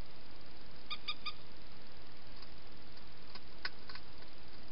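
Wild hedgehog feeding from a bowl inside a plastic feeding box: a few sharp clicks a little after three and a half seconds, over a steady hiss. Three short high chirps come quickly one after another about a second in.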